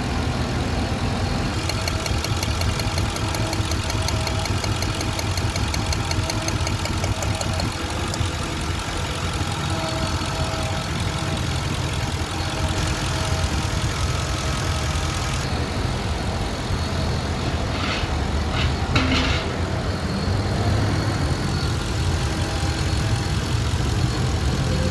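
Car engine idling steadily, with a few short clicks about three quarters of the way through.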